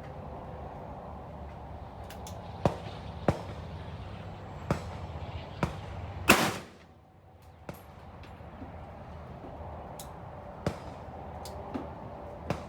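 Rifle shots, about a dozen sharp reports at irregular intervals. Most are fainter, and one about six seconds in is much louder and closer.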